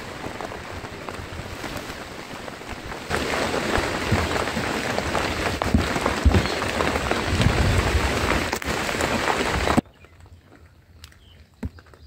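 Heavy rain falling, a dense steady hiss that grows louder about three seconds in, then cuts off abruptly near the end, leaving only faint scattered ticks.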